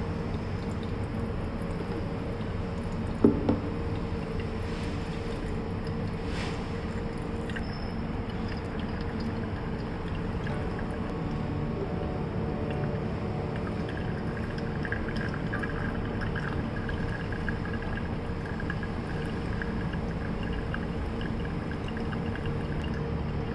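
Water poured in a thin stream onto coffee grounds in a Hario V60 pour-over dripper, then brewed coffee draining and dripping through the paper filter into the glass server. A single sharp knock about three seconds in.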